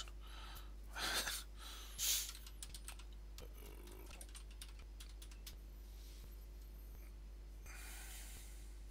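Computer keyboard typing, a quick run of keystrokes through the first three or four seconds, then a faint steady hum with only scattered taps.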